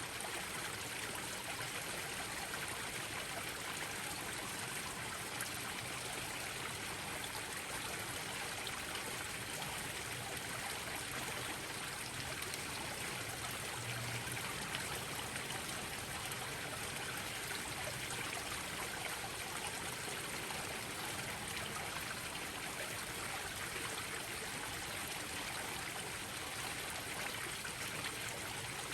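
Garden koi pond waterfalls splashing into the pond, a steady unbroken rush of falling water.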